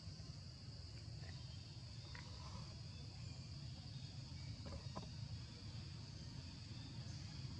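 Forest ambience: a steady high-pitched insect drone over a low rumble, with a few faint clicks.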